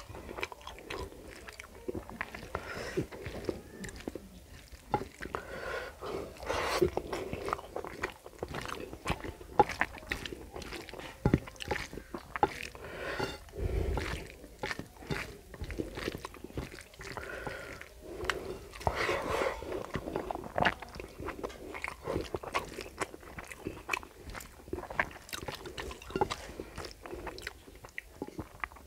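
Close-miked chewing and wet mouth smacks of a man eating rice and curry by hand, with many short sharp clicks and some crunching throughout. Fingers mix food on the plate in between, and there is a low thump about halfway through.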